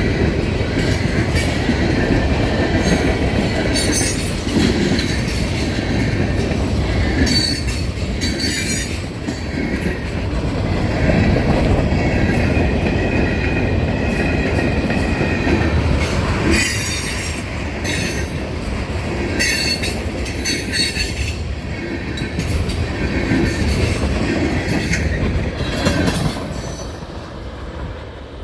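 Kanawha River Railroad freight train's cars rolling past, a steady rumble and clatter of wheels on the rails with high wheel squeal coming and going. The sound falls off near the end.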